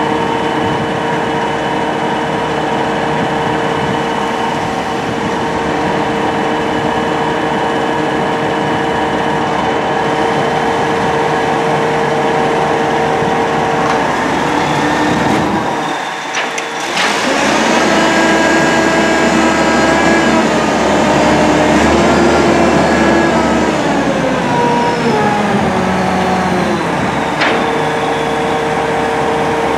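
Terex T560 truck crane running steadily with a constant whine. About halfway through it briefly dips, then revs up louder while the boom is worked down, and over several seconds the pitch falls back to the steady idle.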